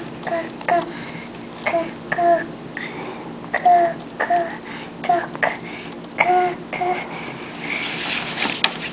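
A toddler naming pictures one short word at a time, "car" over and over in a high child's voice, about a dozen times. Near the end, a paper page rustles as it is turned.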